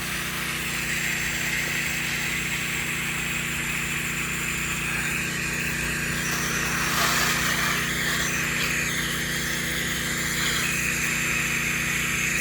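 Soft-wash rig's pump engine running steadily, with the hiss of bleach mix being sprayed onto the house.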